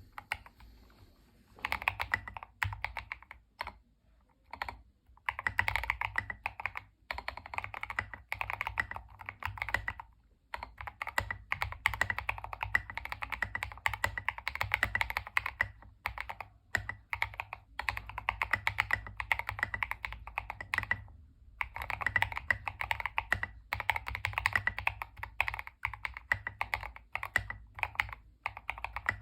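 Typing on a Tester68 mechanical keyboard fitted with Fantasy DVA switches lubed with Krytox 205/105 mix. Keystrokes come in fast runs that begin after a second or so, broken by a few short pauses.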